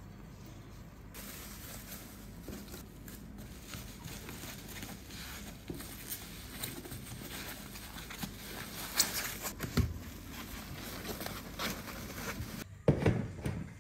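Bubble wrap and foam packing sheets rustling and crinkling as they are handled and folded, with a few sharper knocks and one loud thump near the end.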